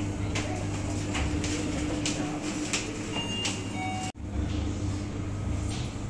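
Shop interior background: a steady low hum with a run of light knocks and clicks under a second apart, cutting out abruptly for an instant about four seconds in.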